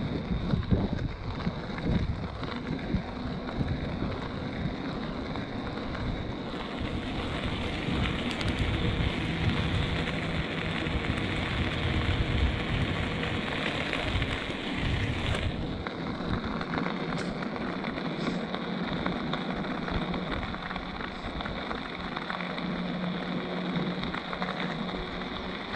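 Wind buffeting the microphone and tyre noise from an electric mountain bike on plus-size tyres rolling along an asphalt street. It is a steady rushing rumble whose hiss eases about two-thirds of the way through.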